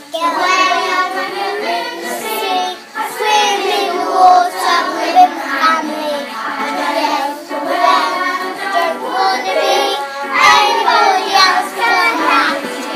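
A class of five-year-old children singing a song together.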